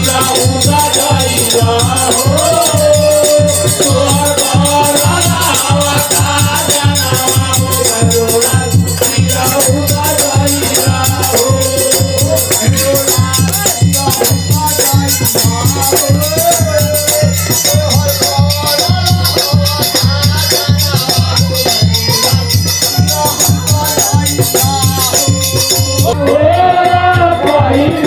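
Devotional group singing (kirtan): male voices sing through microphones over a barrel-shaped hand drum beaten in a steady rhythm and small brass hand cymbals clashing on every beat.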